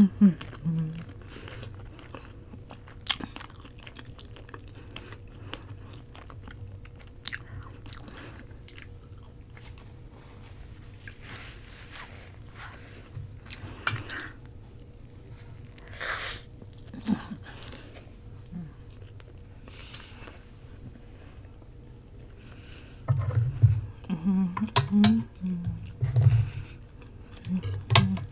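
Close-miked chewing and mouth sounds of a person eating roti, with scattered sharp clicks. The mouth sounds grow louder and denser about 23 seconds in.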